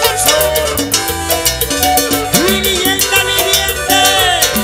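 Live band playing an instrumental passage of a Latin dance tune: a stepping bass line, a quick steady percussion beat and melody instruments, with no voice.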